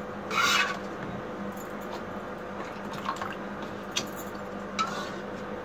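Thickened milk (kulfi mixture) being poured into a disposable plastic cup: a short splash about half a second in, then a few faint drips. A faint steady hum underneath.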